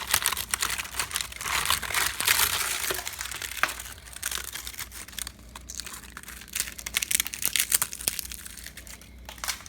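Termites feeding inside infested wood: a dense, irregular crackle of tiny clicks and crunches, the sign of an active termite infestation.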